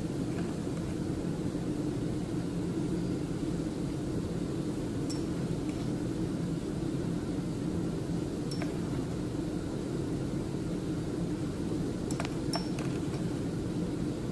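A few faint, sharp clinks of a metal spatula against a porcelain crucible as copper sulfate crystals are spooned in, over a steady low room hum.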